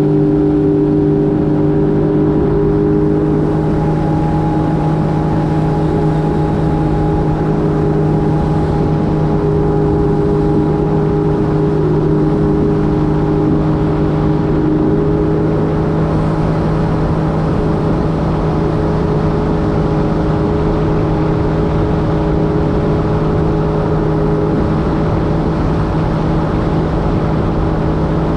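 Jet ski engine running at a steady cruising speed, a steady hum over a rushing noise.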